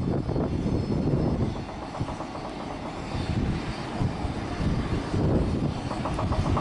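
Aircraft engine noise under a gusty low rumble of wind buffeting the microphone. Near the end, a regular series of short clicks begins.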